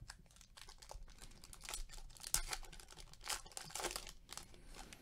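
Foil wrapper of a Topps Star Wars trading card pack being torn open and crinkled by hand, a faint run of irregular crackles and rips, loudest a little over two seconds in.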